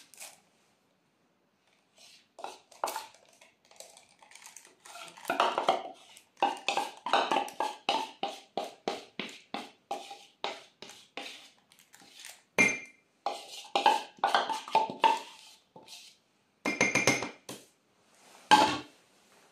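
Metal spoon scraping tempered chocolate out of a plastic bowl into a piping bag in a glass, with a run of quick clinks and scrapes, a few a second, and a couple of louder knocks near the end.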